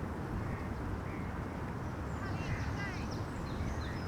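Outdoor park ambience: a steady low background rumble with birds calling, a quick run of short chirps coming about halfway through.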